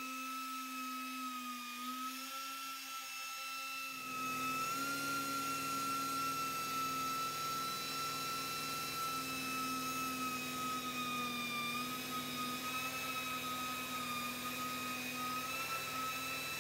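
A 2-inch pneumatic polisher runs with a steady high whine that wavers slightly in pitch as its foam pad polishes the paint with compound. About four seconds in the sound grows a little louder and fuller.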